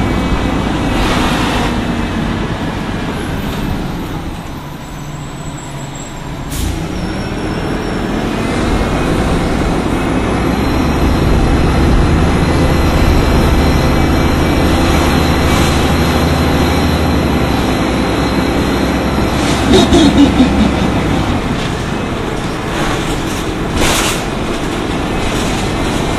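Orion V CNG transit bus running on its Detroit Diesel Series 50G natural-gas engine through an Allison B-400R automatic transmission. The engine quietens a few seconds in, then builds into a long steady pull before easing off. Sharp knocks and bumps come about six seconds in, around twenty seconds in and again near the end.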